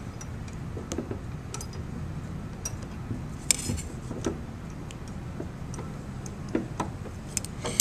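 Scattered light clicks and taps of a steel rule and pencil being handled against a pine board, over a steady low room hum.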